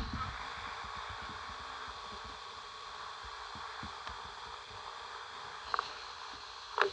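Steady electronic hiss with faint steady tones running through it. A brief sound comes about six seconds in, and a louder short one just before the end.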